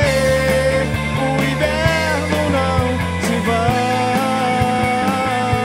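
Rock band playing an instrumental passage: an electric guitar lead line with string bends over bass guitar and a drum kit.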